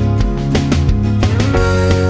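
Background music with a steady beat and sustained melodic tones.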